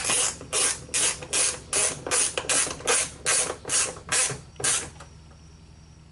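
A hand ratchet clicking in quick, even back-strokes, about a dozen strokes, as it drives a screw into a car door panel. It stops about five seconds in.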